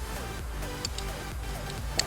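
Background music with a steady low bass and a short repeating synth melody, with a few faint clicks.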